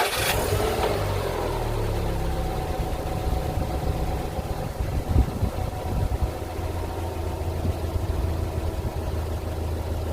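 Subaru Impreza WRX STI (GVB) turbocharged flat-four catching on start-up, the revs flaring and falling back over about two seconds, then settling into a steady idle.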